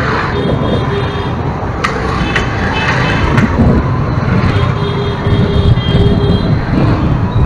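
Street traffic heard from a camera riding along a busy town road full of motor scooters and motorbikes: a steady low rumble of wind on the microphone and engines. A few sharp knocks come a couple of seconds in, and a steady held tone sounds for about two seconds past the middle.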